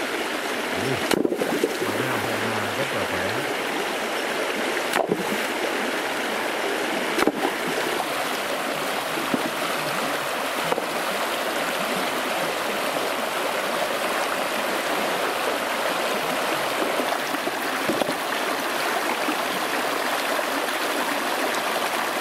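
Shallow rocky river rushing steadily over stones and riffles, with a few sharp splashes or knocks as stones are handled in the water.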